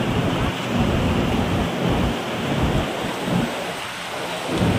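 Wind buffeting the phone's microphone: a rough, gusty rumbling rush that surges and eases every second or so.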